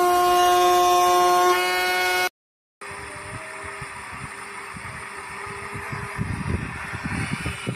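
Pine Cone portable blender's small motor spinning its blade in an empty jar with a loud, steady, high-pitched whine that cuts off after about two seconds. After a brief silence the blender runs again much more quietly, blending a jar of juice, with irregular low knocks building near the end.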